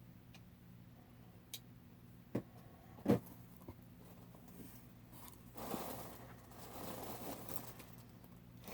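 Packaging being handled while a box is unpacked: a few sharp knocks and clicks, then a stretch of soft rustling and scraping of packing material.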